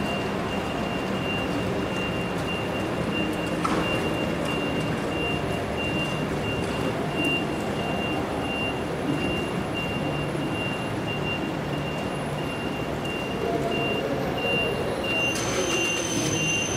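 Steady rumble of electric trains running slowly into an elevated station, with a high electronic beep repeating about twice a second. The beeping stops about fifteen seconds in, and a higher steady whine starts.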